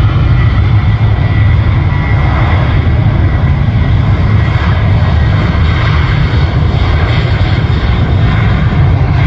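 Jet airliner engines running steadily at high power on the runway, a loud rumble with a thin whine above it, mixed with wind buffeting the microphone.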